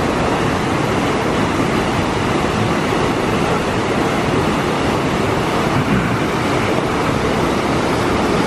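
Fast-flowing river rushing over rocks and a small cascade, a loud, steady rush of water.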